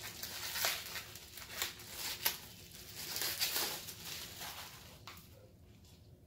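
Plastic wrapping crinkling and rustling as it is pulled open by hand and a hardcover graphic novel is taken out: an uneven run of crackles that thins out about five seconds in.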